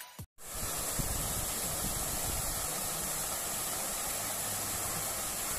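Steady rushing of running water, even and unbroken, after music cuts off at the very start.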